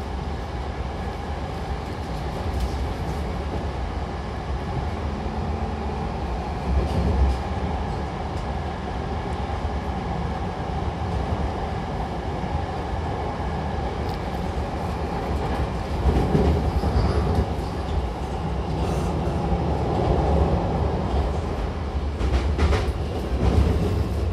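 Hankyu Takarazuka Line electric train running between stations, heard from inside the car: a steady rumble of wheels on rails, with scattered knocks and clatter, more of them in the second half.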